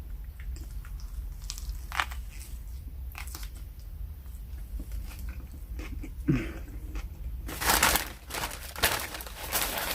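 Scattered small taps and rustles, then about two seconds of loud crinkling from a takeout bag being rummaged through near the end.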